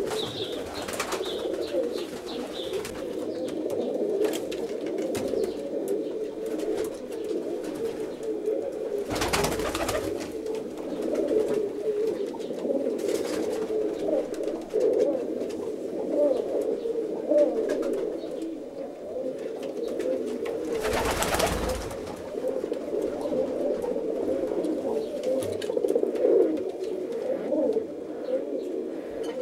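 Several domestic roller pigeons cooing continuously in overlapping low, warbling coos. Twice, about a third of the way in and again about two-thirds in, a short burst of rustling noise breaks in over them.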